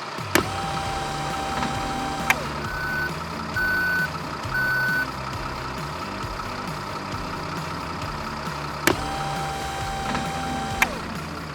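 Toy-vehicle sound effects: a sharp click starts a steady whirring tone that runs about two seconds and stops with another click, sliding down in pitch. Then come three reversing beeps about half a second apart, and then the click-started whir again.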